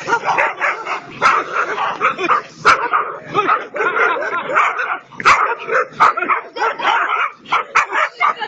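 A dog barking in rapid, almost unbroken volleys, with a few sharper, sudden sounds among them.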